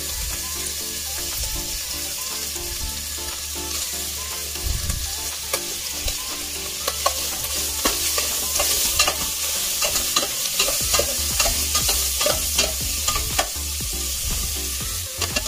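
Cubed ham frying in olive oil in a stainless steel pot, a steady sizzle. From about seven seconds in, metal tongs stir the ham, clicking and scraping against the pot.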